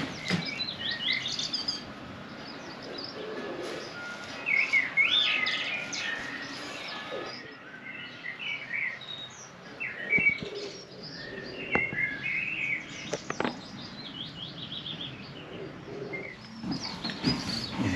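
Small birds chirping: many short, high, quick chirps and twitters throughout, with a few sharp clicks in the second half.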